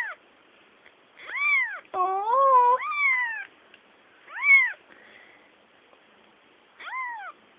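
Young kitten meowing repeatedly, about five short calls, each rising and then falling in pitch.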